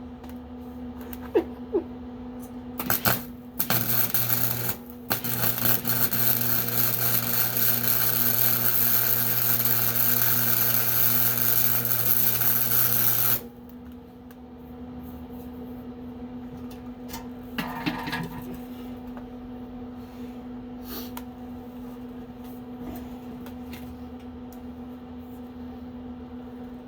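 Electric arc welding on steel: a few short starts, then a loud, steady crackling buzz that runs for about eight seconds and cuts off suddenly. A steady low electrical hum sits underneath throughout.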